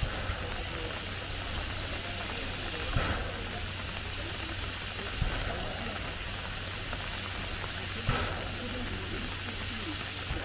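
A C11 steam tank locomotive standing and hissing steam steadily, with a few faint knocks.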